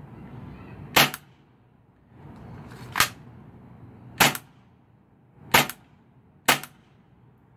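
Gas blowback airsoft pistol firing five single shots, each a sharp crack with the slide cycling, about one to two seconds apart.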